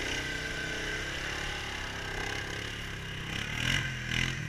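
Utility ATV engine run at full throttle to climb a steep, slippery muddy slope, held at high revs, with two brief louder surges near the end.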